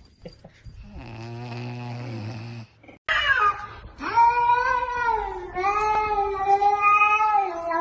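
A cat yowling in long, drawn-out wavering calls starting about three seconds in, with a brief break. Before that there is a low, steady rumble lasting under two seconds.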